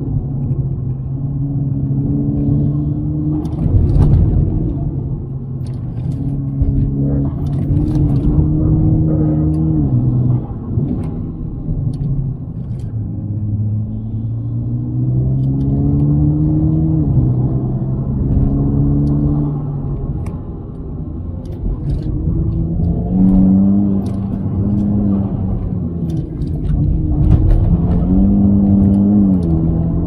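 Mitsubishi Lancer Evo X's turbocharged 2.0-litre four-cylinder engine heard from inside the cabin, under load uphill, its revs climbing steadily and then falling back several times over a low road rumble.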